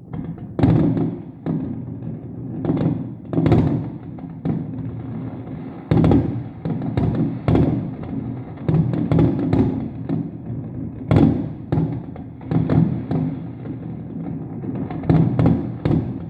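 Fireworks display: aerial shells bursting in a string of loud bangs with rumbling echoes, several in quick clusters, over music playing in the background.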